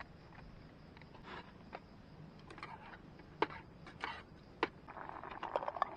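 Camp cooking: sharp clicks and taps of a seasoning container and utensils against a camping pot, a few separate knocks and then a denser crackling near the end.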